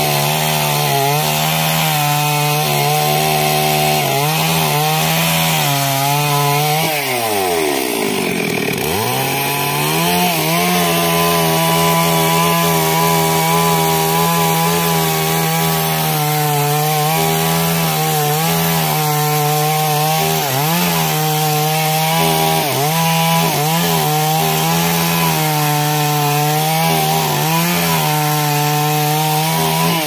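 Stihl MS 382 two-stroke chainsaw running at high speed after a no-start fault was fixed. Its pitch drops steeply and climbs back about seven seconds in, dips briefly a few more times, and starts to fall right at the end.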